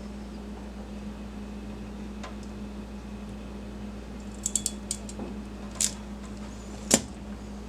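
Crimp tool closing on a D-sub pin: a few light clicks, then one sharp, louder click near the end as the crimp completes. A steady low hum runs underneath.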